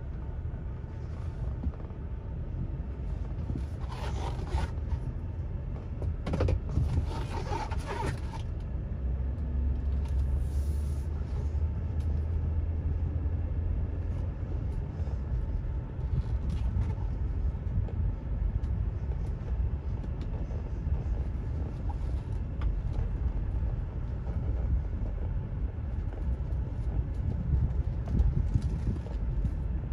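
2008 Chevrolet Avalanche pickup driving slowly, heard from inside the cab: a steady low engine and tyre rumble, deepening into a heavier drone from about 9 to 14 seconds in. A few brief rustling noises come around 4 seconds and again around 6 to 8 seconds in.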